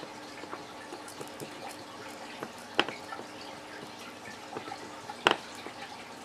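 Hot soldering iron tip working along a rough cut edge of a plastic tackle box lid, melting it smooth. It makes faint crackling and small scattered ticks, with two sharper clicks about three and five seconds in, over a faint steady hum.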